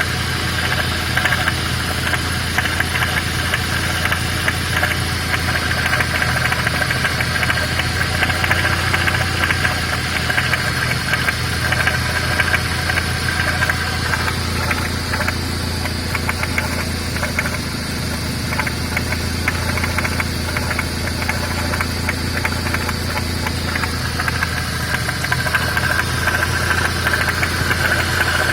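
GAZ-31105 Volga engine idling steadily with a rapid knocking from a worn water pump bearing. A higher whine fades partway through and comes back near the end.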